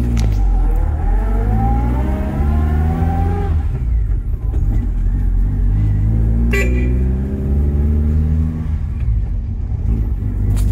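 1972 Premier President's four-cylinder petrol engine running after start-up. Its pitch climbs steadily for about three seconds and drops back, twice. A single sharp click comes in between the two rises.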